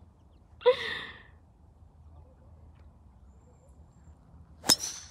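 A golf driver strikes a ball off the tee near the end: a single sharp crack. About a second in there is a short breathy voice sound, like a sigh or exhale.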